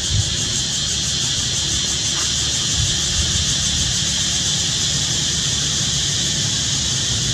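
Steady high-pitched insect chorus droning in the trees, over a low rumble with a couple of brief low thumps.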